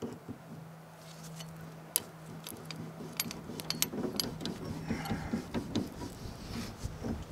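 Metal pry tool levering and scraping a worn wooden flange bushing off a steel longtail drive shaft: scattered clicks and scrapes, busiest in the middle stretch.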